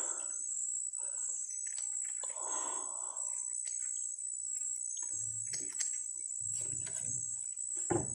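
Steady high-pitched drone of a rainforest insect chorus, crickets or cicadas, with scattered small clicks and soft rustles and a sharper knock near the end.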